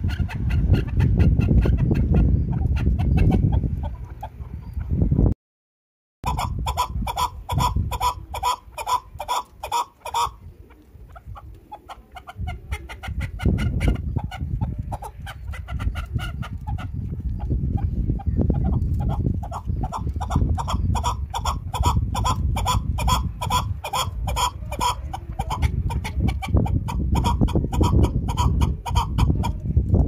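Chukar partridges calling: long runs of rapid, evenly repeated chuck notes over a steady low rumble. The sound cuts out for about a second about five seconds in, then the calling resumes.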